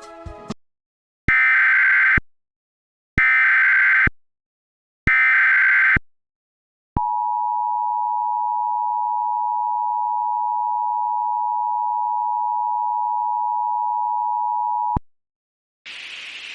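Emergency Alert System header: three short bursts of warbling data tones, each about a second long, then the EAS two-tone attention signal, held steady for about eight seconds and cut off sharply. Static hiss comes in near the end, and the tail of some music fades out in the first half-second.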